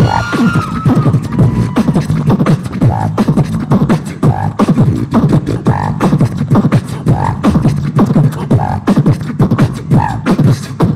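Two beatboxers, a woman and a man, beatboxing together into stage microphones: a fast, dense rhythm of percussive mouth sounds, with some pitched vocal lines and effects over the beat.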